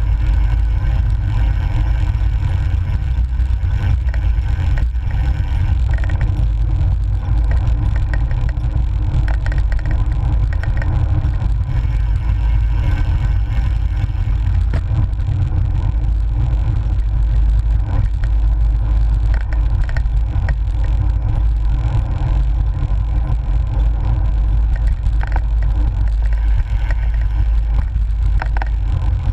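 Wind buffeting the microphone of a GoPro mounted on a moving cyclocross bike: a loud, steady low rumble.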